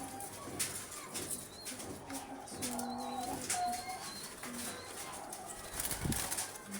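Several caged doves cooing in low, drawn-out notes that overlap, with occasional wing flaps and rustling.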